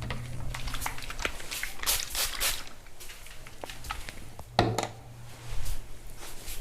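Hands massaging the head and body at close range: rubbing and squishing on skin and hair, broken by quick taps and slaps, with a heavier thump about four and a half seconds in.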